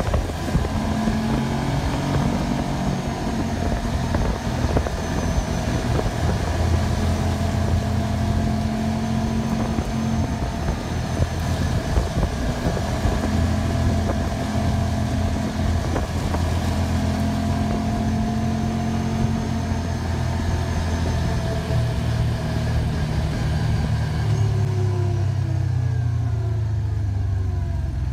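Can-Am side-by-side engine running at road speed, heard from inside the open cab with wind and tyre rush; the engine note rises and eases a little with throttle. Near the end the engine pitch falls away as the machine slows.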